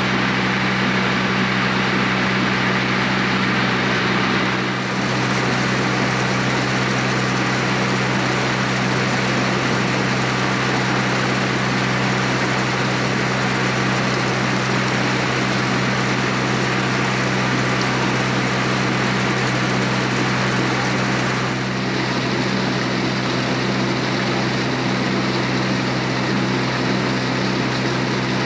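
Motor launch's engine running at a steady cruise, a constant low drone over the rush of water churning along the hull.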